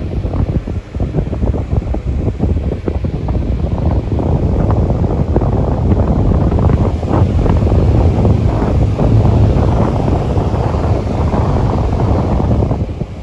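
Delta Gold electric fan running, its airflow buffeting the microphone: a loud rushing with crackling gusts that eases off near the end.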